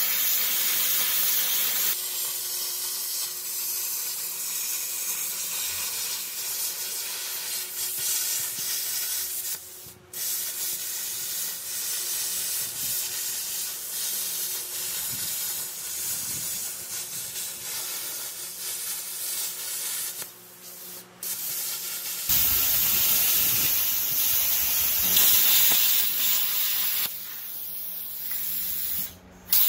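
Plasma cutter cutting steel plate: a steady hissing rush of the arc and air. It breaks off briefly about ten seconds in and again around twenty-one seconds, then runs louder and fuller from about twenty-two seconds before cutting off just before the end.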